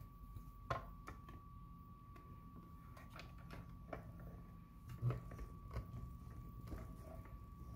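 Plastic cutting plates being handled and fed into a hand-cranked Mini Stampin' Cut & Emboss die-cutting machine: a few scattered clicks and knocks, the loudest about a second in and again about five seconds in, then the handle being cranked near the end.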